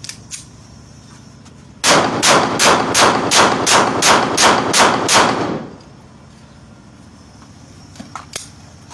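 Workshop-made semi-automatic pistol fired in rapid single shots, about a dozen at roughly three or four a second, emptying a magazine. A few faint clicks follow near the end.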